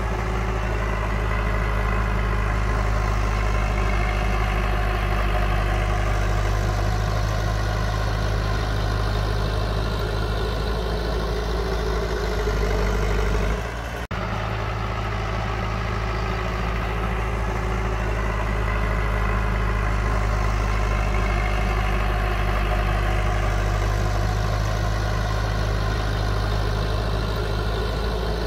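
Heavy diesel engine of earthmoving machinery running steadily with a deep, even hum. The sound dips briefly about halfway through and breaks off sharply before resuming.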